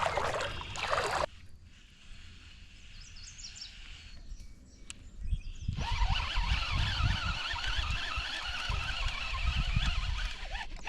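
Outdoor evening ambience with a steady high-pitched chorus of calling animals. There are a few faint chirps in a quieter stretch, and low rumbles on the microphone in the second half. The sound changes abruptly about a second in and again at about six seconds.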